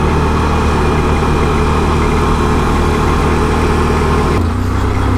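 Can-Am Renegade 1000 ATV's V-twin engine running steadily. About four and a half seconds in, the note drops and eases off.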